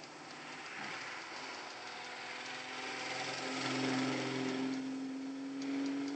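A car engine drawing nearer, growing louder over several seconds, its pitch rising slightly toward the end.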